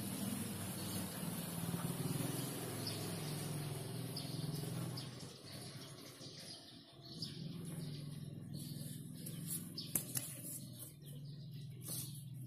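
Outdoor ambience: birds chirping over a low steady hum, with a couple of short knocks about ten seconds in.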